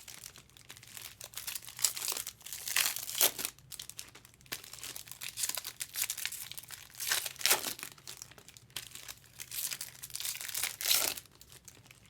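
Foil trading-card pack wrappers crinkling and tearing as packs are ripped open and the cards handled, in a string of irregular rustling bursts.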